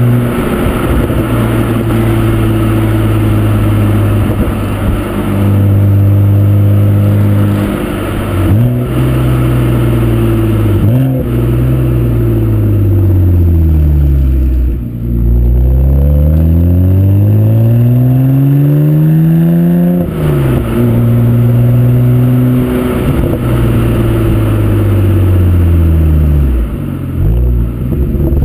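BMW 135i (E82) turbocharged straight-six heard at the tailpipes through its BMW Performance exhaust while driving. It holds long steady stretches with short breaks at gear changes, drops in pitch for a few seconds around the middle, then rises steadily as the car pulls away again.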